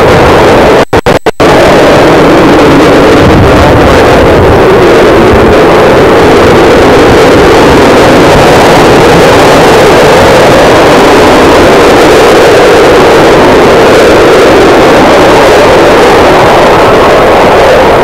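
Jet aircraft of a smoke-trailing formation team making a loud, steady roar that overloads the recording. The sound cuts out briefly three times about a second in.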